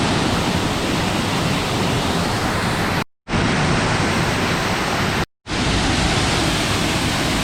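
Waterfall water rushing, a loud steady hiss of falling water that cuts out abruptly for a moment about three seconds in and again about five seconds in.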